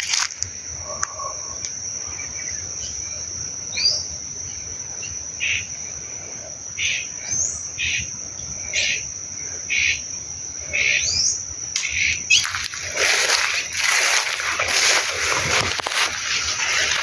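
A steady high-pitched insect drone, like crickets, with a bird giving a run of short rising calls about once a second through the middle. Louder, noisier sounds join in near the end.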